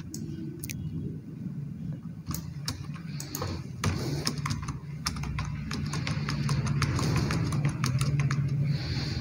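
Computer keyboard keys clicking irregularly, the keystrokes of repeated copy-and-paste, over a low steady hum.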